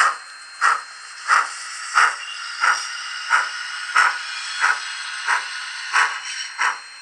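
Sound decoder of a Rivarossi H0 Union Pacific Big Boy model locomotive playing steam exhaust chuffs from its onboard speaker while the model runs: an even beat of about one and a half chuffs a second over a steady steam hiss.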